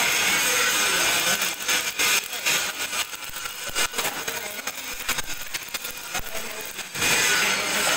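Steady power-tool noise in a metal workshop, louder in the first two seconds and again near the end, with a few sharp metal knocks from a spanner and hammer on the bolts of a steel concrete-mixer drum.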